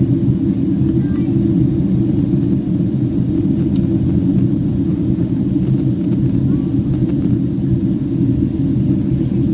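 Steady cabin noise inside a Boeing 767-300 airliner in flight: a continuous deep rumble of engines and airflow over the fuselage, even in level throughout.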